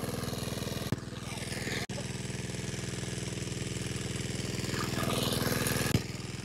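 Water pump's engine running steadily at a constant speed, pumping water out of the pond.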